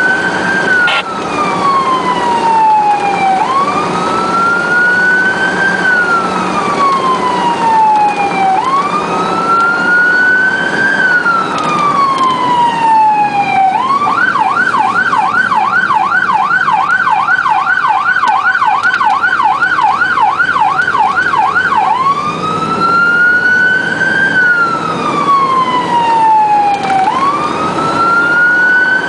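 Electronic emergency siren on the responding vehicle, heard from inside the cab, running in wail: the pitch climbs and falls about every five seconds. About midway it switches to a fast yelp of about three cycles a second for some seven seconds, then goes back to wail. Engine and road noise run underneath.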